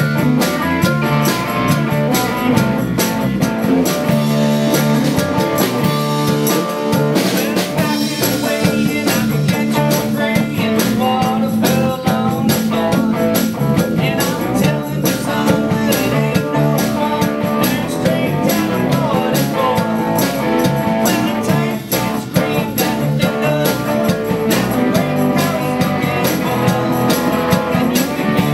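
Live rock band playing a song: acoustic and electric guitars, electric bass and a drum kit, with a male lead voice singing.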